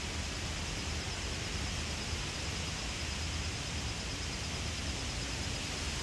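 Wind blowing outdoors over a pond and buffeting the microphone: a steady rushing hiss with a low rumble underneath.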